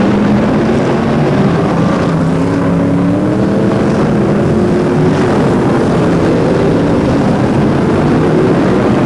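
A pack of V8-engined BriSCA F1 stock cars racing together, several engines running at once with their pitch slowly rising and falling.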